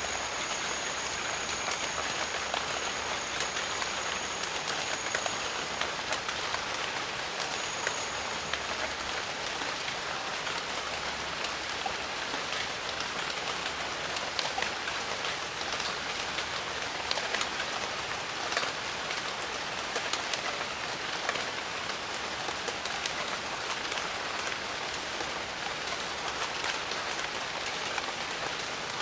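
Steady jungle rain, with many individual drops striking sharply through the constant hiss of the downpour. A thin, high, steady tone sounds for the first few seconds and again briefly about eight seconds in.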